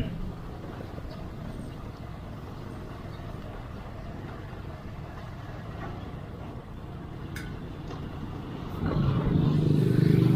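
Road vehicle noise: a steady rumble and hiss, with a louder engine hum swelling up about nine seconds in and holding near the end.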